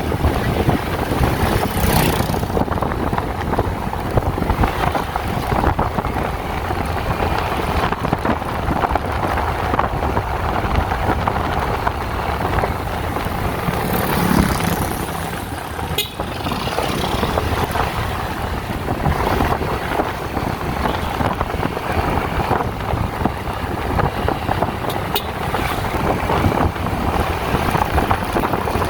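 Steady rumble of a moving vehicle, with wind buffeting the microphone and a single sharp click about 16 seconds in.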